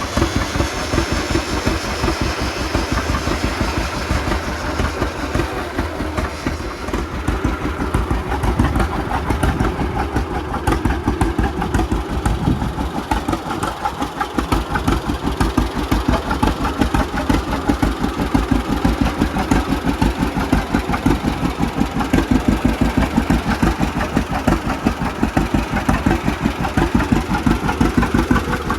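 1940 John Deere A's two-cylinder engine running with an even, rapid putt-putt beat, its restored engine holding a steady speed.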